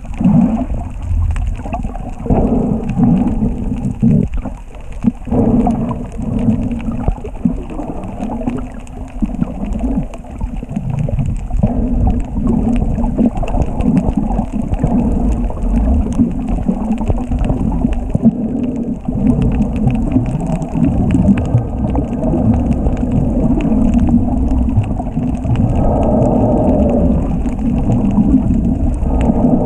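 Muffled, low rumbling water noise picked up by a camera in an underwater housing, rising and falling unevenly with no clear rhythm.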